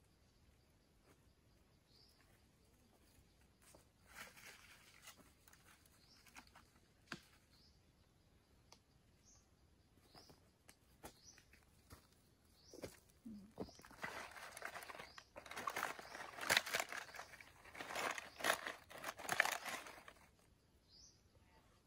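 Dried wild mushrooms crunching and rustling in a plastic bag as hands press them down, for several seconds in the second half. Faint bird chirps come now and then.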